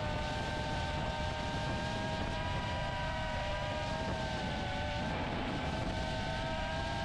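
The DarwinFPV CineApe35 cinewhoop in flight: its motors and ducted propellers give a steady multi-tone whine that dips and shifts in pitch about five seconds in as the throttle changes.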